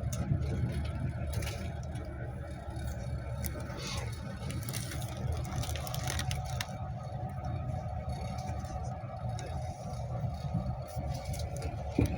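Passenger train running, heard from inside the carriage: a steady rumble of the wheels on the rails, with scattered small clicks and rattles.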